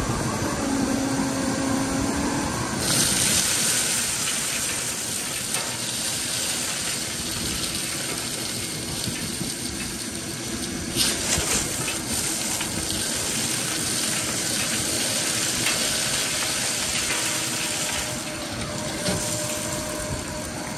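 Four shop vacuums running together, pulling air through a 4-inch corrugated hose into a 55-gallon steel drum: a steady rushing hiss as the hose sucks up wood chips. The rush gets brighter about three seconds in and surges again around eleven seconds.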